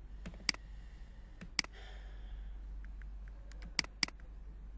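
Computer mouse clicks: a few single clicks, then a quick double-click near the end, over a steady low electrical hum.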